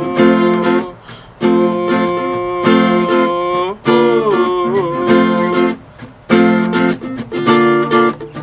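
Acoustic guitar strummed in rhythmic chord bursts with short breaks, and a brief vocal phrase sliding in pitch about halfway through.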